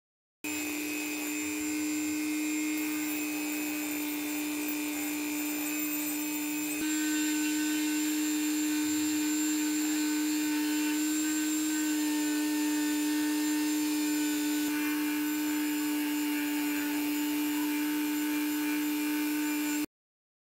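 Handheld rotary tool with a sanding drum spinning at high speed, a steady motor whine, grinding rust off a steel wrench's jaw. It starts abruptly about half a second in and cuts off abruptly near the end.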